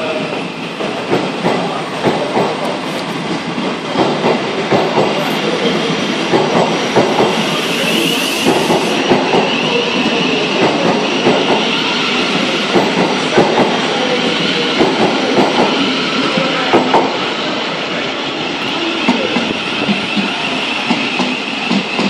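Electric multiple-unit passenger train running along a station platform: wheels clicking over rail joints, with a steady high whine.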